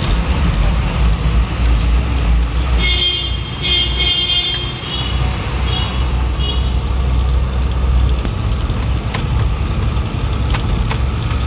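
Container lorry's engine and road noise as a steady low rumble heard from inside the cab. A vehicle horn sounds in several short blasts about three seconds in.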